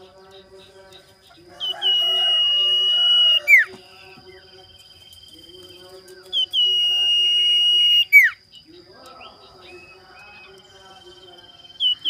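Common iora (sirtu/cipow) giving its long whistled call: a high note held level for about two seconds, then snapped off in a sharp downward slur. It comes twice, and a third begins near the end.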